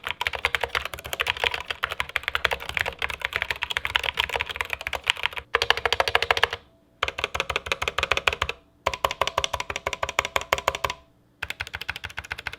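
Fast typing on an Epomaker SK61 60% keyboard with stock Gateron optical brown switches: a dense run of key strokes, broken by three short pauses.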